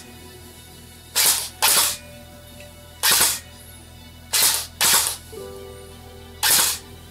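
Cybergun M249 Minimi airsoft electric gun firing single shots: six shots, the first two and another two coming in quick pairs, over quiet background music.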